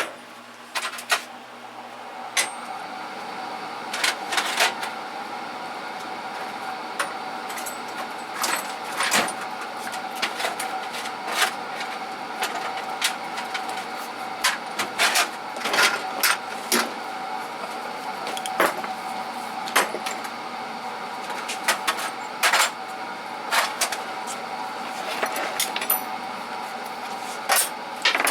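Small metal tools and accessories clinking and clattering as they are handled and set into toolbox drawers, in irregular knocks and rattles over a steady hum.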